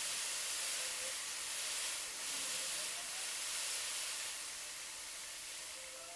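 Electric arc welding on steel tube: a steady hiss and crackle of the arc, with a brief dip about two seconds in and easing off near the end.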